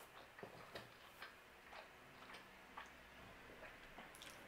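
Faint, irregular wet clicks of a mouthful of pizza being chewed.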